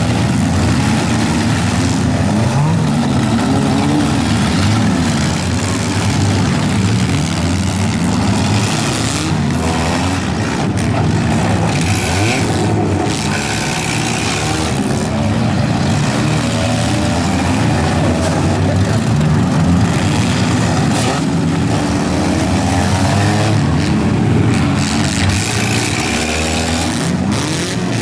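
Several four-cylinder demolition derby cars running and revving at once, their engine notes rising and falling over one another, with the occasional crunch of cars ramming each other.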